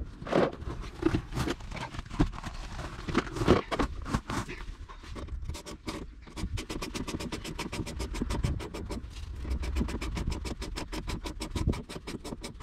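Knocks and thumps of a road wheel being pulled off a camper van's front hub. Then, from about six seconds in, a fast, even clicking at roughly seven a second, the sound of a ratchet wrench being worked at the hub.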